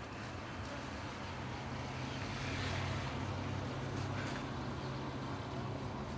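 Street traffic noise: a steady low hum and haze of vehicles, with one vehicle passing close about two to three seconds in.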